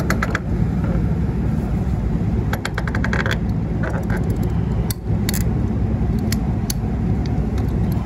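Ratcheting PVC pipe cutter clicking as it is worked through a PVC condensate drain pipe, with a quick run of clicks about two and a half seconds in and single clicks after. Under it runs a steady low rumble.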